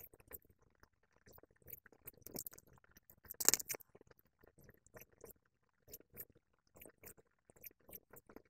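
Sheets and cut strips of coloured paper being handled on a tabletop: scattered light clicks and rustles, with one louder rustle about three and a half seconds in.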